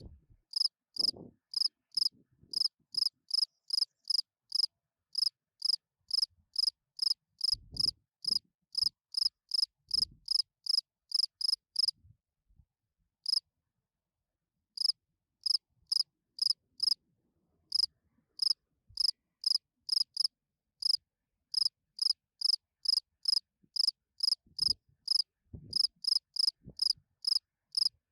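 Field cricket chirping its calling song: short, high chirps repeated about three times a second, pausing for a couple of seconds about halfway through before resuming.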